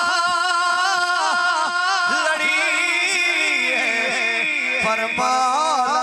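A man's voice singing a devotional poem into a microphone, amplified over a PA, in long wavering melismatic notes; a high note is held for a couple of seconds in the middle.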